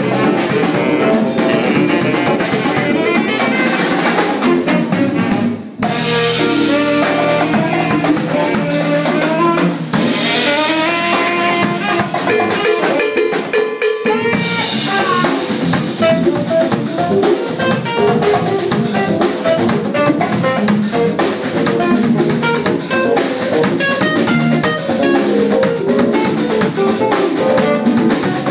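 Live jazz-funk band playing: drum kit with rimshots and bass drum, hand percussion, bass, saxophone and piano, in a steady groove with a brief break about six seconds in.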